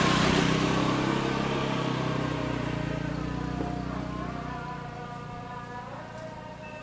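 Diesel engine of a rail-laying machine running with a buzzing drone, loudest at the start and fading away over about five seconds as it moves off.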